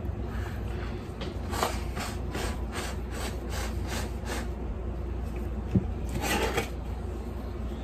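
A row of about seven short rasping scrapes, evenly spaced at a little over two a second. Then a sharp tap and a longer scrape as a spatula scoops frosting out of a plastic mixing bowl.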